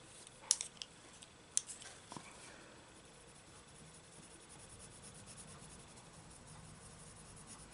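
Prismacolor Premier coloured pencil scratching softly over thin book paper in short blending strokes. A couple of sharp light clicks come in the first two seconds, before the scratching starts.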